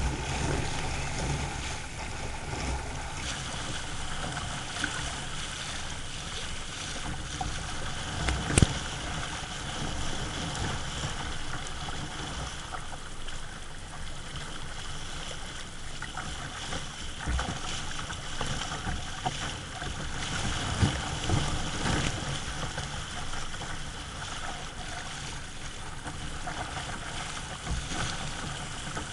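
Water rushing and splashing along a sea kayak's hull as it surfs a wave, heard close up from a camera on the deck, with a few sharper splashes or knocks; the strongest comes about a third of the way in.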